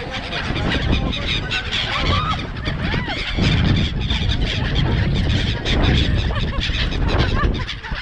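A flock of black-headed gulls calling all around, many short squealing cries overlapping, over a low rumble of wind on the microphone.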